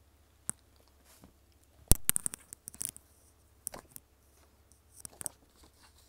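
Irregular sharp clicks and small crackles close to the microphone. The loudest comes about two seconds in, followed by a quick run of smaller clicks, with a few more around three and five seconds in.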